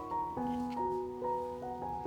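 Background music: a slow, gentle piano melody with sustained notes.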